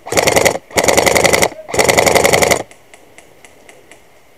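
Airsoft electric rifle firing on full auto in three short bursts, each a fast, even rattle of shots, the last burst the longest. Faint scattered ticks follow near the end.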